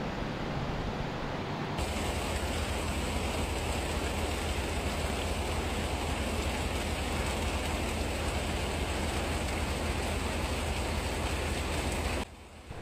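Steady rushing noise of fast-flowing flood water. It turns brighter about two seconds in and cuts off abruptly just before the end.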